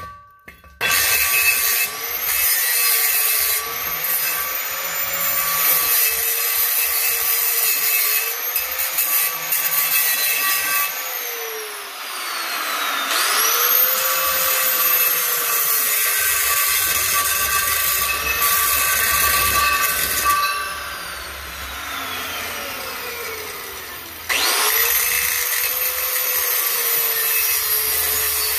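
Angle grinder cutting a groove into a spinning steel yard-tractor wheel rim, the rim turned like a lathe. The motor whine sags and wavers under the pressure of the cut. Twice, around twelve seconds in and again near twenty-four seconds, it slows down and then spins back up to a high whine.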